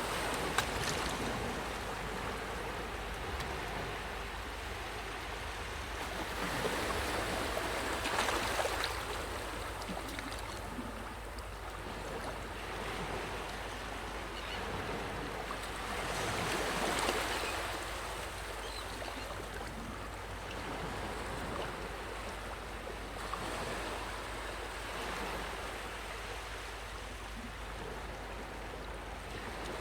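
Sea waves breaking and washing up on a sandy shore, the surf swelling about every eight or nine seconds.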